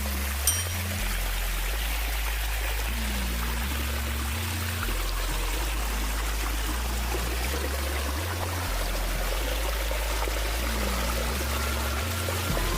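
Background music with a deep bass line stepping between notes, over a steady rush of running water. There is a single short click about half a second in.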